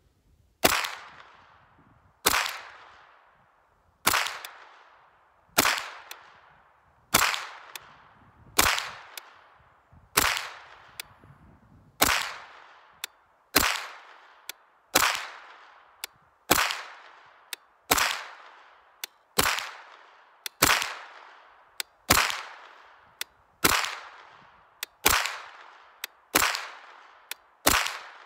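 Freedom Ordnance FX-9 blowback 9mm carbine firing Winchester 115-grain steel-case ammunition semi-automatically. There are about 19 shots at a slow, even pace of one every second and a half, each sharp crack trailing off in a long echo. The gun cycles every round without a stoppage.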